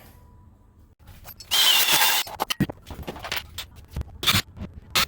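Work noises from handling tools and parts: a loud scraping rasp about a second and a half in, then a run of sharp clicks and knocks.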